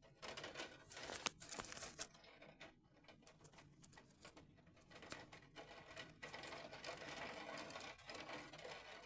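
Heavy rain falling: a faint, irregular patter of drops.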